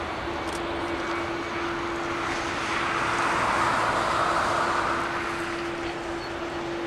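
Boeing 787-8 jet engines at takeoff thrust during the takeoff roll: a continuous broad jet noise that swells about halfway through and eases again, over a steady hum.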